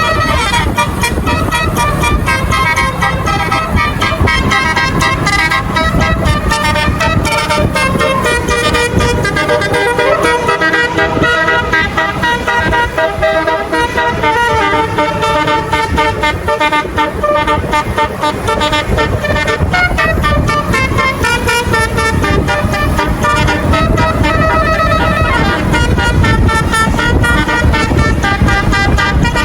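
Tour bus Basuri multi-tone horn playing a melody, note after note in steps, over engine and traffic rumble.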